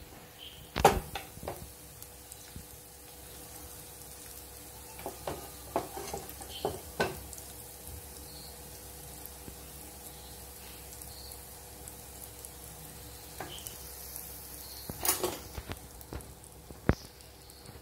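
Dosa batter sizzling on a hot pan, with a few sharp knocks and scrapes of a spatula spreading the potato masala filling: once about a second in, several around the middle, and a cluster near the end.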